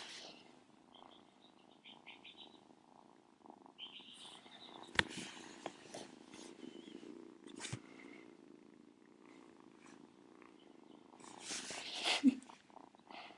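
Kitten purring close to the microphone, a low steady hum, broken by a few sharp clicks and a louder rustle near the end.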